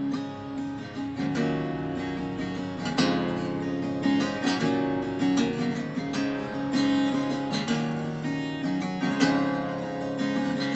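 Acoustic guitar strummed and picked, a song's instrumental introduction before the singing begins.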